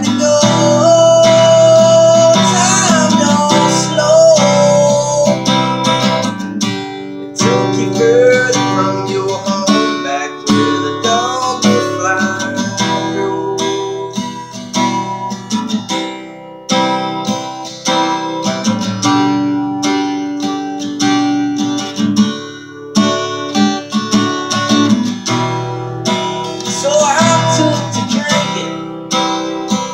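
Acoustic guitar strummed and picked in a steady rhythm, an instrumental passage of a country-rock song.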